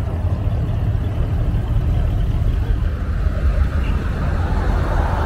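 Classic American cars driving slowly past, a steady low engine rumble.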